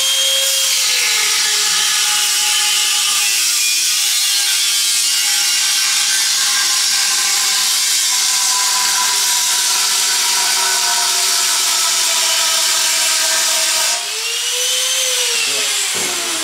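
Angle grinder with a cutting disc slicing into the steel wall of a car LPG tank: the motor's whine drops in pitch as the disc bites, about half a second in, and holds there under a loud grinding noise. About 14 seconds in the disc comes free, the whine rises, then it winds down as the grinder is switched off near the end.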